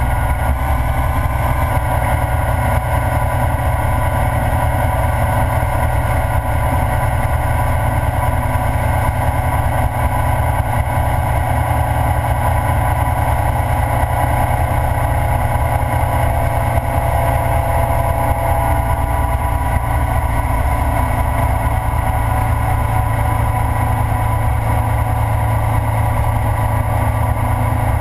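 Ural sidecar motorcycle's flat-twin engine running steadily at road speed, with wind rushing over the microphone.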